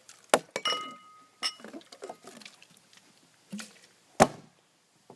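A series of sharp knocks and clinks of hard objects. Two of them ring briefly with a clear tone, and a louder knock comes about four seconds in.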